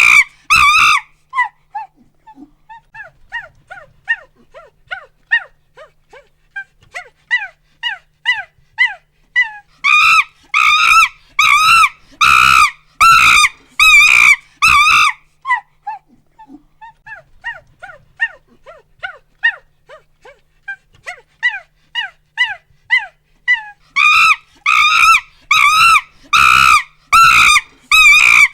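Chimpanzee pant-hoot calls: runs of short, quick hoots that build up into a climax of loud screams about one a second, fall back to quieter hoots, and build again to screams near the end.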